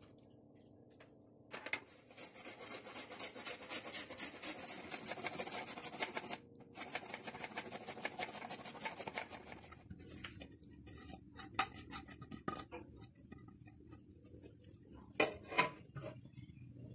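Carrot being grated on a stainless-steel box grater: rapid rasping strokes that start after a short quiet moment, pause briefly about midway, then thin out. A few metal knocks near the end.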